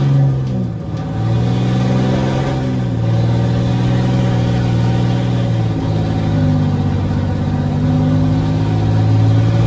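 A Ram pickup's tuned, emissions-deleted Cummins turbodiesel inline-six under a half-throttle pull, heard from inside the cab. It accelerates hard through the gears, with shifts about a second in and about six seconds in.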